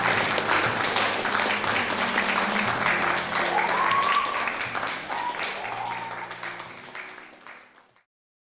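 Audience applauding with steady, dense clapping. The sound fades out and stops about eight seconds in.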